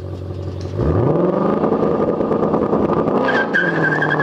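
Ford Mustang Shelby GT500's supercharged V8 revving up sharply about a second in and pulling hard at high revs, with tyres squealing near the end.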